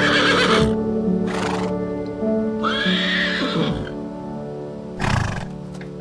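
Zebra calling over background music: a high call at the start and another about three seconds in, with short breathy sounds between and near the end.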